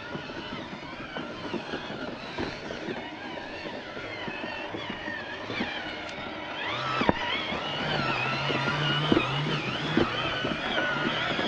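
Electric motors and gearboxes of small radio-controlled scale trucks whining, the pitch wavering up and down with the throttle, with scattered knocks of the trucks over rough ground. About six and a half seconds in, a low hum joins and the sound grows louder.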